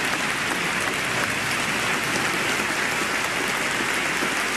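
Sustained applause from a large standing audience in a legislative chamber, a dense, steady clapping.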